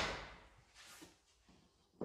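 Near silence: a loud noise fades out in the first moment, then only faint room tone with a single faint click about halfway through.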